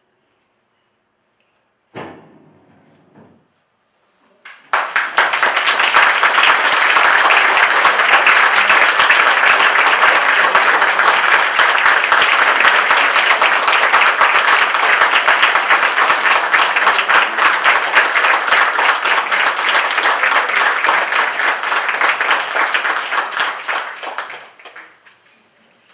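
Audience applauding: dense, steady hand clapping that starts about five seconds in, runs for some twenty seconds and dies away near the end. Before it, a single short thump about two seconds in.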